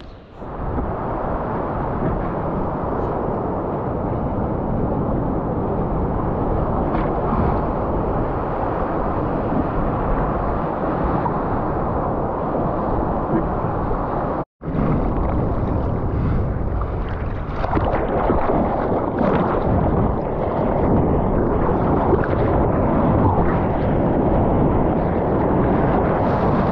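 Muffled, steady rush of ocean surf and churning whitewater around a surfboard being paddled out, with wind buffeting the microphone. It drops out for an instant about halfway and grows louder from about two-thirds through.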